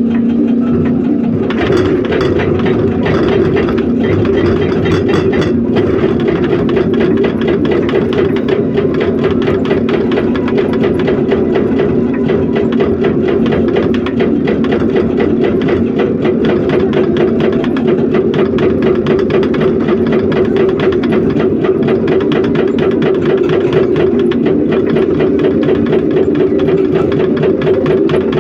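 Hydraulic excavator's diesel engine running steadily under load, with a fast, even rapping throughout; it grows louder and harsher about a second and a half in.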